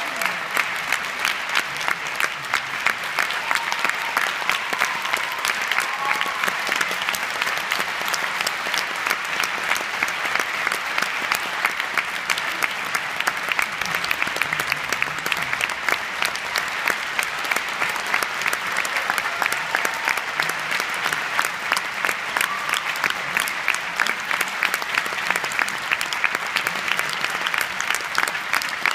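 Theatre audience applauding steadily, a dense continuous clapping with sharper single claps close by standing out.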